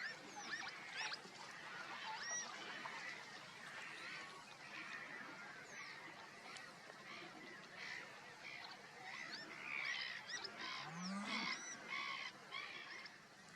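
Birds calling across open marshland, with many short overlapping calls throughout.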